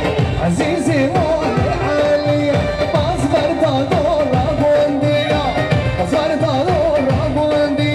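Live band music in a Middle Eastern style: a wavering, ornamented lead melody over a steady drum beat.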